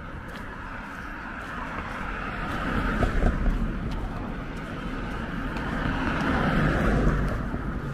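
Cars passing on the street, their tyre and engine noise swelling as one goes by about three seconds in and another near seven seconds.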